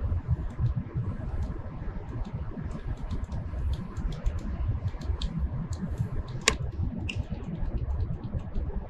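Light, irregular clicks from jogging the CNC saw's Z axis down in small steps on the pendant, to touch the arbor onto a dial indicator. One sharper click comes about six and a half seconds in, over a steady low rumble.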